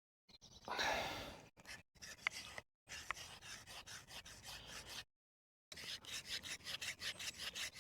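A breathy exhale about a second in, then quick repeated rubbing and scraping strokes, about five a second, as the wooden parts and string of a homemade bow drill are worked by hand.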